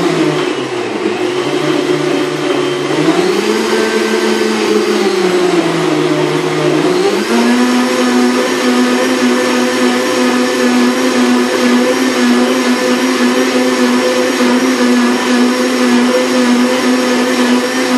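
High-powered countertop blender running loud while it blends a green smoothie of leafy greens, ginger and avocado. Its motor pitch drops, climbs and drops again over the first few seconds, then settles to a steady higher whine for the rest of the run.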